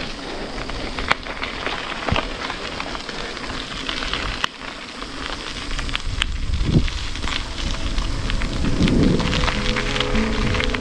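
Steady wind rush with scattered crackling ticks from a bike on the move. Soft music with held notes fades in about eight seconds in.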